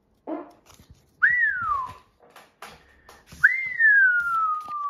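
A person whistling two sliding notes: a short one that swoops up and drops back down, then a longer one that rises quickly and glides slowly downward. Soft clicks of trading cards being handled come in between.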